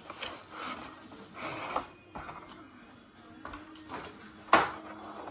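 Cardboard box and plastic tool case being handled: short scrapes and rustles, then one sharp snap about four and a half seconds in, the loudest sound.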